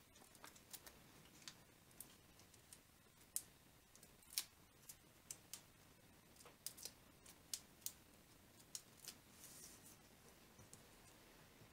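Faint, irregular small clicks and crinkles of paper and adhesive being handled: foam dimensionals peeled from their backing sheet and a paper piece pressed down.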